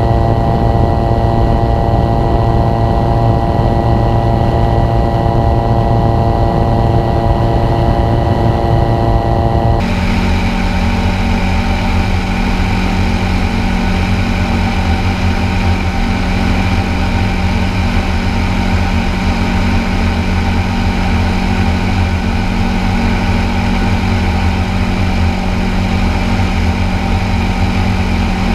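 Engine and pusher propeller of a Revo weight-shift light-sport trike droning steadily in flight. The tone shifts abruptly about ten seconds in, then holds steady again.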